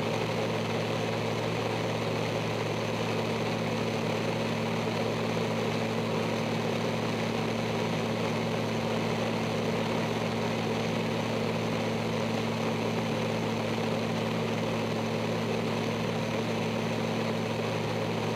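Extra 300L's Lycoming flat-six engine and propeller droning steadily in level flight, heard from inside the cockpit, with an even hum and no change in power.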